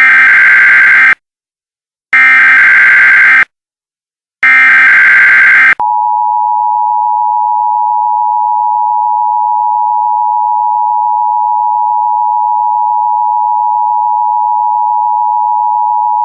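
Emergency Alert System test signal: three short bursts of SAME header data, each about a second long with about a second of silence between them. Then the EAS two-tone attention signal starts about six seconds in and holds steady and loud.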